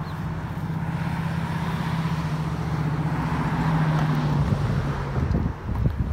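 Cars passing on a road: tyre and engine noise swells as a car goes by, peaking about three to four seconds in and then fading. Irregular low rumbles come in near the end.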